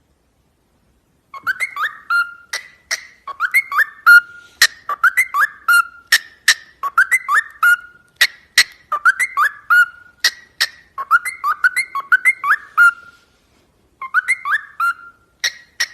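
A parrot whistling the same short phrase of gliding notes over and over, about once a second, with sharp clicks among the notes; it breaks off briefly near the end before one more round.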